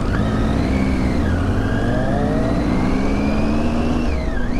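Motorcycle engine running, its pitch rising and falling a few times as the revs change, over a steady low rumble.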